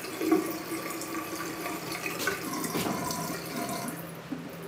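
Bathroom sink faucet running water into the basin, shut off about four seconds in.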